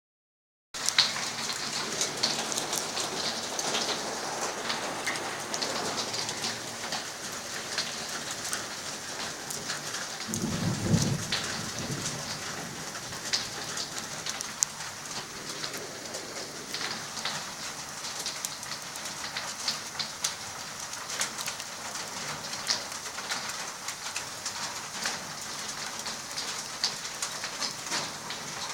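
Rain starting to fall with hail: a steady hiss of rain dotted with many sharp ticks of hailstones striking. A brief low rumble comes about ten seconds in.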